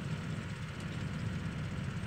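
Claas Arion 620 tractor's diesel engine running steadily under load as it pulls a Bomford Dyna-Drive cultivator through the soil, a continuous low rumble.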